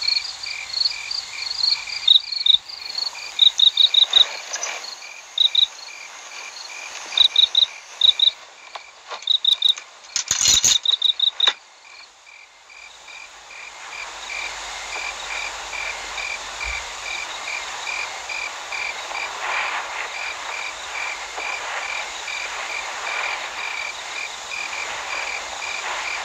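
Night chorus of chirping crickets, a fast even rhythm running throughout. Louder, higher chirps come in short groups of three or four during the first twelve seconds, with a brief loud rattle about ten seconds in. From about fourteen seconds a steady hiss fills in beneath the chirping.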